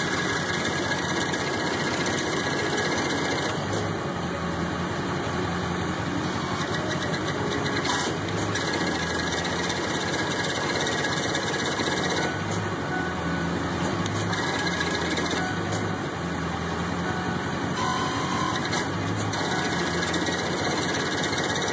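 Tow truck's engine running steadily at idle, kept running to power the wheel-lift hydraulics while a leak is traced, with a low hum that swells and eases now and then.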